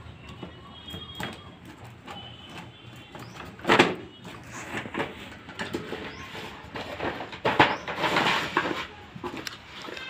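Cardboard box being opened and handled on a concrete floor: irregular scraping and knocks as the inner tray slides out of its sleeve, the loudest knock about four seconds in and a stretch of sliding scrapes near eight seconds.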